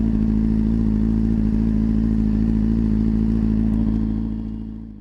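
Motorcycle engine running steadily at an even pitch, fading away near the end.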